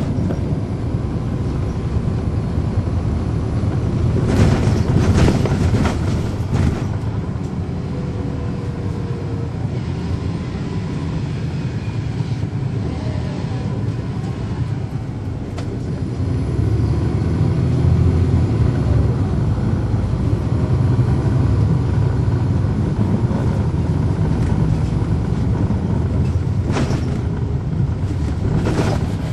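Cabin sound of a 2010 NABI 416.15 transit bus with its Cummins ISL9 diesel engine running: a steady low rumble that grows louder a little past halfway. A couple of brief clatters come about five seconds in and again near the end.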